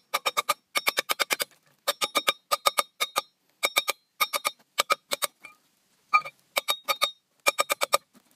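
Quick runs of mallet taps driving a Speedi-Sleeve repair sleeve and its installer tool onto a crankshaft's rear seal journal. Each tap is a sharp strike with a short metallic ring, in runs of three to five with brief pauses between.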